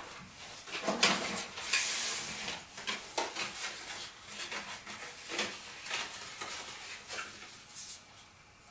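Playing cards being picked up off a wooden tabletop and handled in the hands: a run of crisp clicks and papery rustles, densest with a longer rustle about a second in, thinning out and stopping near the end.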